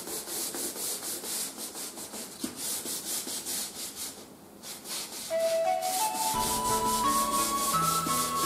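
Hand sanding wooden floorboards with a sanding sponge: quick back-and-forth scrubbing strokes, about three a second, smoothing the filled seams. The strokes pause briefly, then background music with a melody and bass comes in about halfway through, louder than the sanding, which continues under it.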